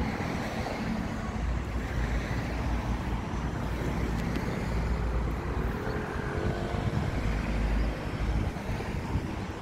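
Steady road traffic noise with a heavy low rumble, and a whine that glides in pitch about four to seven seconds in.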